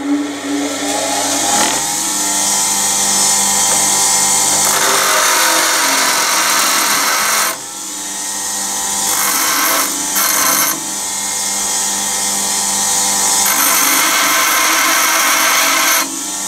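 Small handheld electric power tool running, its motor whine rising as it spins up, with short breaks about halfway through and near the end.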